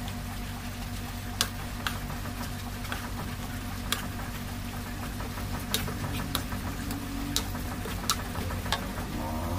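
Wooden spoon knocking against an aluminium wok while grated cassava is stirred into a wet mixture: about nine sharp, irregular taps over a steady low hum.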